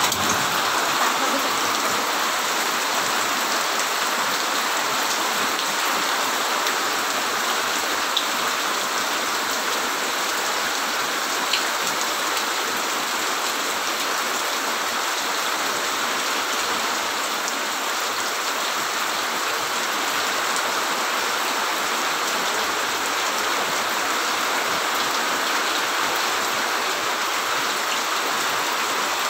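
Heavy rain pouring steadily onto a flooded yard, drops splashing into standing water.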